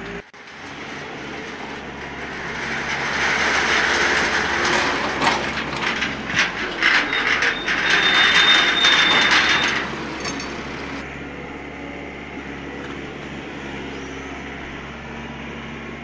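Forklift working on a steel mobile yard ramp: machinery noise builds up, with a run of metal knocks and clanks and a brief high squeal in the middle. It then drops to a quieter steady hum for the last few seconds.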